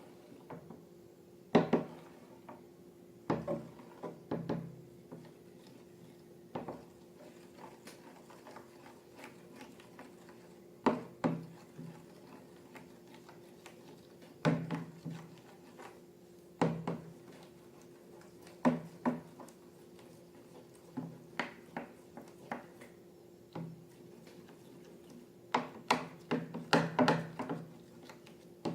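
Hard objects knocking and clicking on a surface at irregular intervals, sometimes several in quick succession, over a faint steady hum.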